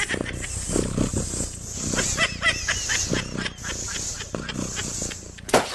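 Balloon being blown up, with high squeaky chirps and short pulses, then bursting with a single sharp bang near the end.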